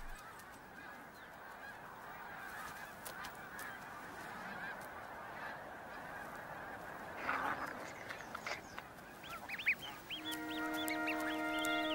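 Snow goose colony calling: a steady din of many geese honking, with one louder honk about seven seconds in. Near the end, music with held notes comes in, with short high peeps over it.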